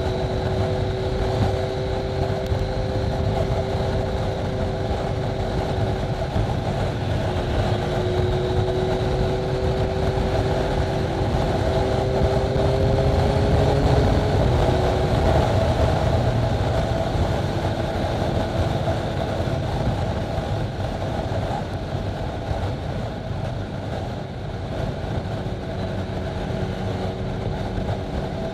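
Yamaha MT-09's inline three-cylinder engine running at steady cruising speed, with wind rushing past. The engine note rises slightly, then drops about halfway through and holds lower as the throttle eases.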